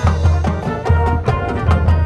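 High school marching band playing: brass and woodwinds over percussion, with repeated low bass notes and sharp percussion strikes.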